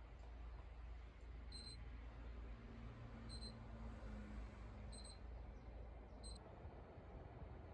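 Four short, high electronic beeps, about one and a half seconds apart, over a faint low hum.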